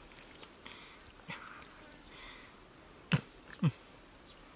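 Soft wet squelching of hands working in mud and slippery catfish, with two short, sharp wet slaps about three seconds in, half a second apart.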